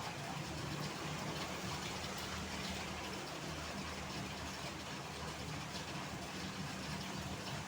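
Steady hiss of heavy rain mixed with road traffic, a constant low engine hum underneath.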